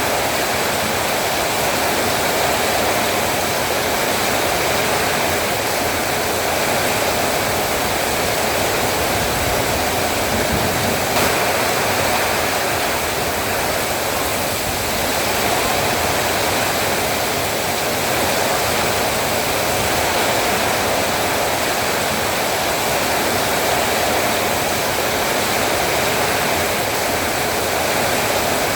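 Heavy rain pouring steadily, a dense even hiss with no let-up.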